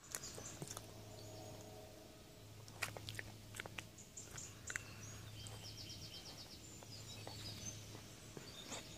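Eurasian badger crunching and chewing peanuts close to the microphone, with sharp crunches scattered through. Birds sing in the background, with a quick trill of high notes about halfway through.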